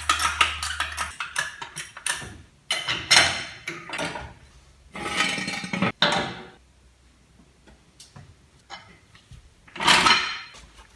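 Hand work at a car wheel: scattered clicks and knocks of tools and parts, with a few short rustling swells.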